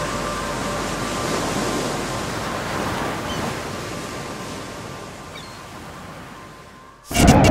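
Rushing, surf-like ocean noise with faint held tones, slowly fading out over about seven seconds. Near the end it cuts abruptly to a much louder sound carrying a steady whine.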